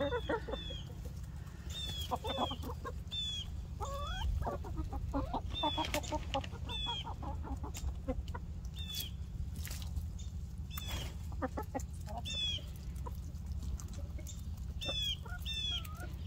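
A flock of backyard hens clucking and calling while they feed, with short high calls coming over and over and overlapping one another. A steady low rumble runs underneath.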